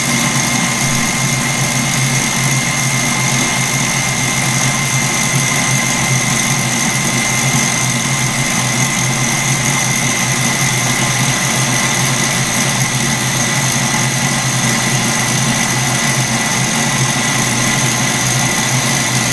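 Kenwood stand mixer running at a steady speed with an even whine, its whisk beating egg whites while 121 °C sugar syrup is streamed in for Italian meringue.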